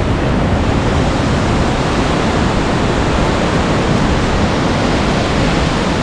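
Kynrem Falls' water cascading over boulders, a steady, loud rushing with no change in level.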